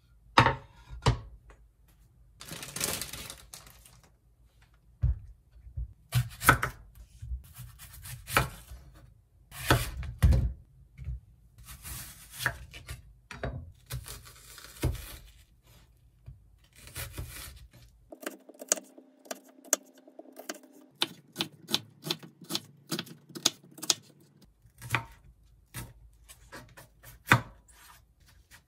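Kitchen knife cutting a red onion on a wooden cutting board: sharp, irregular knocks of the blade hitting the board, with soft slicing and rustling sounds between them.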